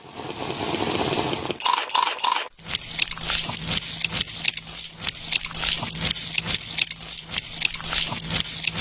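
Water sloshing and dripping, with many irregular small clicks over a faint steady hum. It opens with a hiss and three short beeps.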